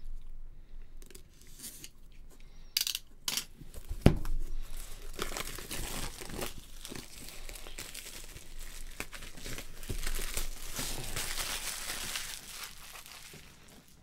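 Shipping packaging being torn and crinkled open by hand as a parcel is unpacked. There are a few sharp knocks and a thump about three to four seconds in, then a long stretch of rustling and crinkling.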